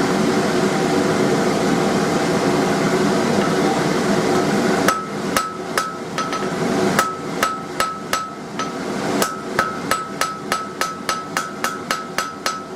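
A steady rushing hum from the forge, then a run of about twenty hand-hammer blows on hot steel bar stock on an anvil. The blows start about five seconds in, each with a short metallic ring, and quicken to about three a second, drawing out the taper of a chisel point.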